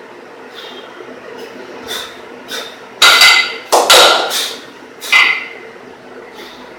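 A pair of 12 kg kettlebells knocking together with a short metallic ring during a double-kettlebell long cycle, the loudest clanks about three, four and five seconds in, with lighter clinks before them.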